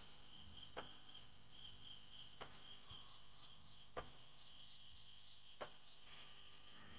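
Night insects, crickets, chirping steadily in high pulsing trills, with faint sharp clicks about every second and a half.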